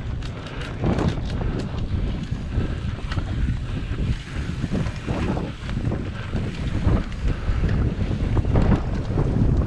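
Wind buffeting the microphone of a camera on a cyclocross rider riding fast over bumpy dirt and grass, with irregular rattles and knocks from the bike on the rough ground.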